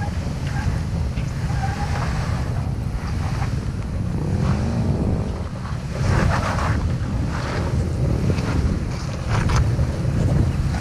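Heavy wind buffeting the microphone over a Toyota 4Runner's engine as it crawls up a rocky slope. The engine revs rise and fall about halfway through, and tyres crunch over rock and gravel a couple of times.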